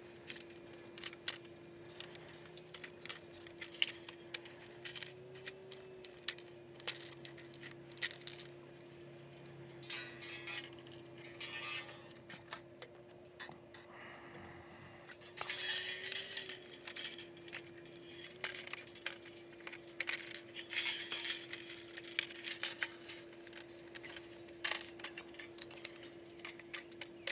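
Light metallic clicks, ticks and scrapes of fence wire being handled and fastened under the terminal nuts of an electric fence charger, coming in irregular flurries. A faint steady hum runs underneath.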